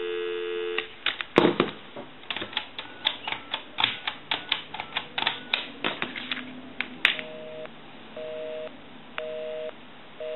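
Telephone dial tone that stops under a second in, then a quick run of clicking key presses on a Western Electric Princess telephone's touch-tone keypad dialing a number. After about seven seconds a busy signal starts: two tones pulsing on and off about once a second, because the called line is busy.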